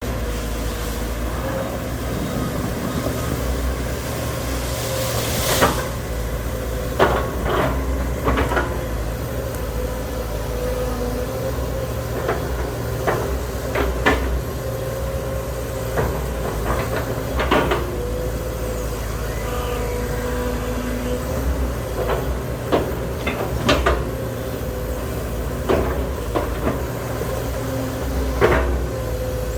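Hydraulic excavator engine running steadily with a faint whine, punctuated by about a dozen sharp knocks and cracks as the machine chops up oil palm trunks.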